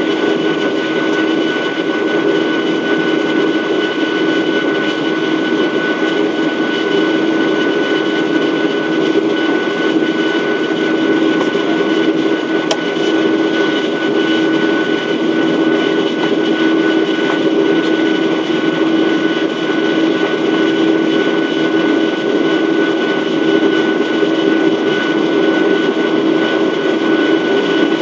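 A Boeing 737-800's CFM56 turbofan engines running steadily at high thrust, heard inside the cabin as an even rush of noise with a steady low drone and a thin whine above it.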